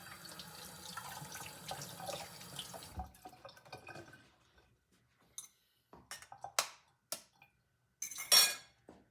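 Kitchen tap running for about three seconds, then shut off. Scattered light clicks and knocks follow, and a brief, louder rush of noise comes near the end.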